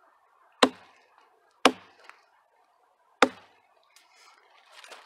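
Small hatchet chopping down onto a log: three sharp blows, the second a second after the first and the third a second and a half later, followed by faint rustling.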